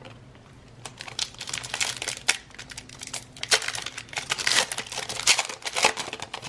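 Plastic trading-card pack wrapper crinkling and tearing as it is opened, with irregular crackles starting about a second in.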